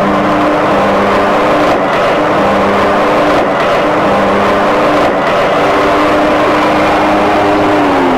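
Zero-turn riding mower running loud and steady as it drives slowly forward.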